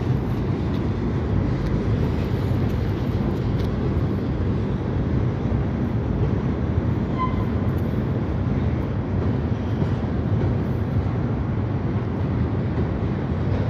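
Freight train tank cars rolling over a steel trestle bridge: a steady, unbroken low rumble of wheels on rail.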